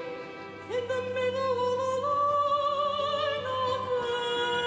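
Operatic singing: a high solo voice holds long notes with vibrato, stepping up about two seconds in and back down near the end, over a low held note beneath.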